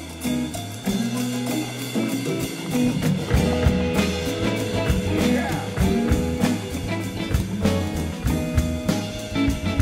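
Live amplified rock band playing: electric guitars, bass guitar, keyboard and drum kit, with a steady drum beat and a moving bass line.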